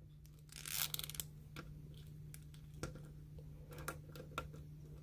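Faint handling noise from a plastic action figure being worked by hand, its waist swivel joint turned: a short rustle of hands about a second in, then scattered small plastic clicks.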